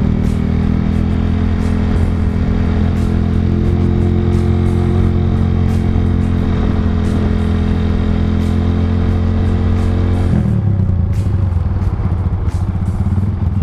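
Motorcycle engine running at a steady speed while riding, with wind and road noise. About ten seconds in, the engine note drops to a lower pitch as the rider eases off.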